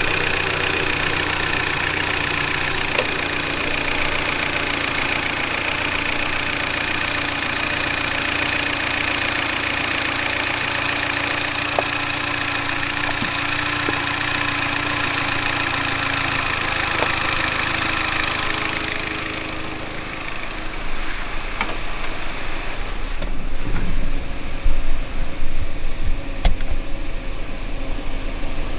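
Mini Cooper R56 engine idling steadily at working temperature. About twenty seconds in, the high hiss drops away and an uneven low rumble with a few scattered knocks takes over.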